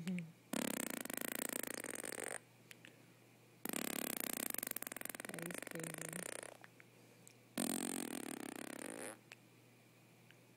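A baby blowing buzzing raspberries with her lips while voicing, three times, each buzz lasting one to three seconds with short pauses between.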